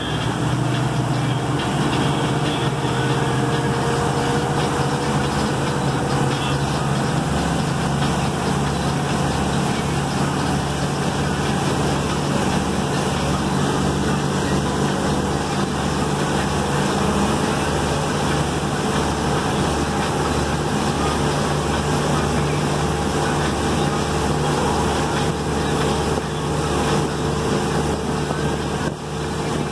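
Motorboat engine running steadily at towing speed, with the rushing water of its churning wake.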